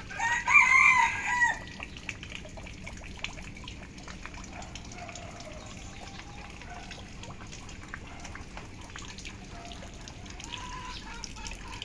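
A rooster crows once, loud and about a second and a half long, right at the start. After it comes steady rain with dripping, and a few faint short calls.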